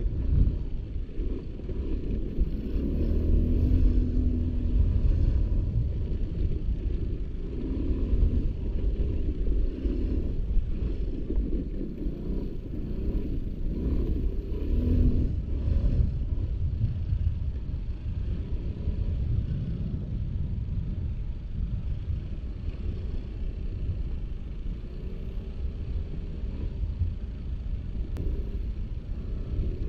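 Aprilia SR 150 scooter's single-cylinder engine running under way on a rough dirt track, its pitch rising and falling as the throttle is opened and eased, over a heavy, continuous low rumble.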